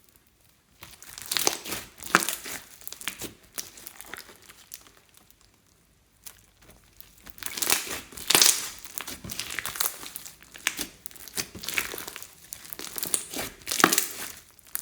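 Slime being squished and kneaded by hand, giving irregular sticky crackling and popping in uneven bursts, with short pauses near the start and about midway.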